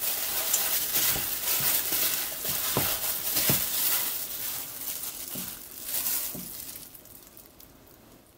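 A plastic-gloved hand working through sauce-coated noodles: wet squishing of the noodles and crinkling of the plastic glove, with a couple of soft knocks about three seconds in. The sound thins out and fades over the last couple of seconds.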